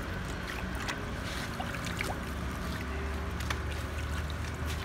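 Water sloshing and splashing in a plastic basin as boiled bánh chưng cakes are washed by hand, with scattered small splashes and knocks over a low steady rumble.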